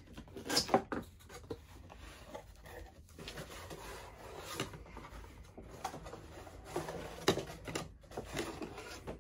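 Cardboard box and packaging being handled and pulled open: scattered rubbing, scraping and light knocks, the loudest a sharp knock about two-thirds of a second in.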